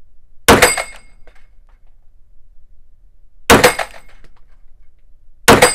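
Three shots from a Canik TP9 SFX Mete 9 mm pistol, the first half a second in, then about three and two seconds apart. Each shot has a short metallic ring from the steel gong targets being hit.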